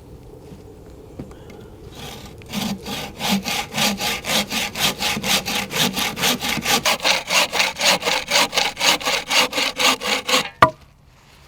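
A hand saw cutting through wood in quick, even back-and-forth strokes, about five a second. It starts a couple of seconds in and stops with a sharp knock near the end.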